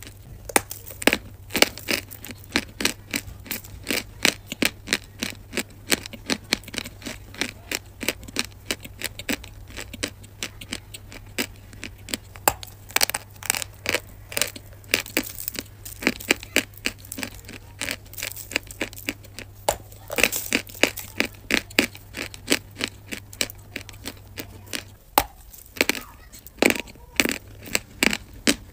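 A chunk of dry edible chalk being bitten and chewed close to the microphone: rapid, irregular crisp crunches and cracks, several a second.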